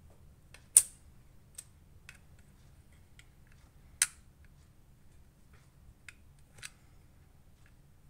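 Sharp clicks and taps of small hard parts of an OTF knife being handled as its slide button is fitted back onto the handle. Two louder clicks come about a second in and about four seconds in, with fainter ticks between and after.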